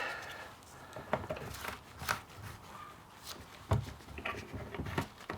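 Scattered knocks and clicks of fuel and oil containers being handled and set down, about one a second, after two-stroke oil has been added to petrol.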